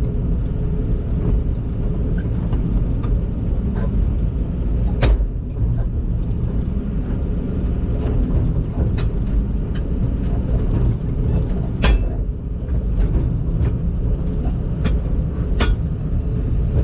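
Heavy vehicle engine running steadily with a deep rumble, with a few sharp knocks or clanks along the way, the loudest about 5, 12 and 16 seconds in.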